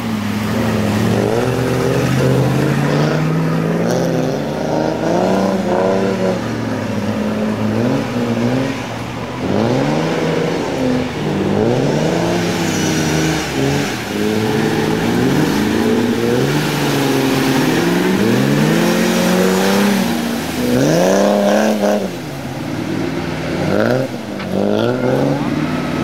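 Off-road 4x4's engine revving hard in repeated surges, its pitch climbing and falling back every second or two as the driver works the throttle to force through deep reeds and mud.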